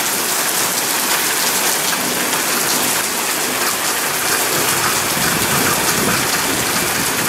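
Heavy rain pouring onto an asphalt parking lot, a steady, even rush of countless drops hitting the wet pavement.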